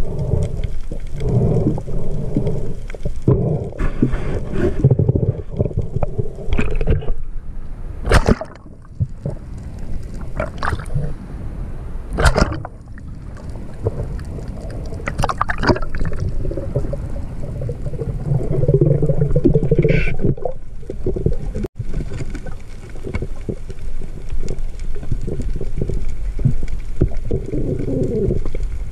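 Water sloshing and gurgling, with a few sharp knocks scattered through.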